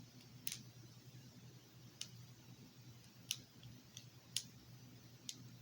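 Plastic block wacky track fidget being twisted into a shape, its cube segments clicking about five times, a second or so apart.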